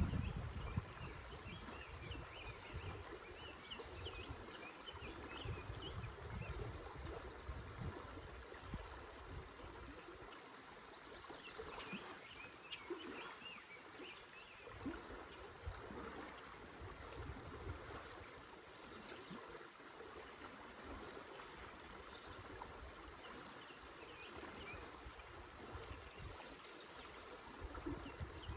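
Shallow river current running over riffles, a steady watery rush, with irregular low rumbles and scattered faint bird chirps over it.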